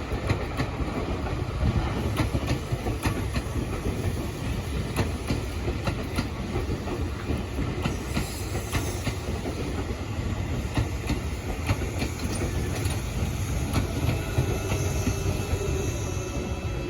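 Tobu 9000 series electric commuter train running along the line: a steady low rumble with the clickety-clack of its wheels over rail joints.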